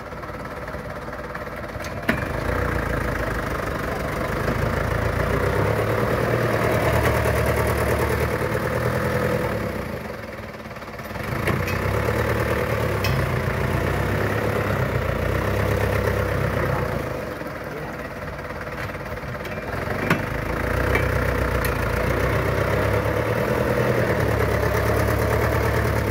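Old dump truck engine revving under load as the truck pulls up onto a gravel pile. It comes on strong three times with two brief drops between, and there is a sharp click near the start of each surge.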